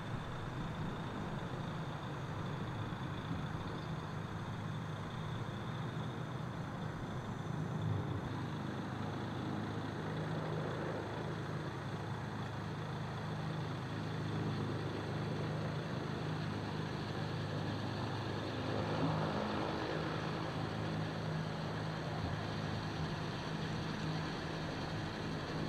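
Mercedes-Benz Citaro city bus driving slowly. Its engine gives a steady low hum throughout.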